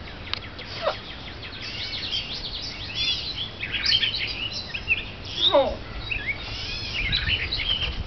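Birds chirping and twittering: many rapid, short high calls, busiest from about two seconds in, with two lower falling sounds around one second and five and a half seconds in.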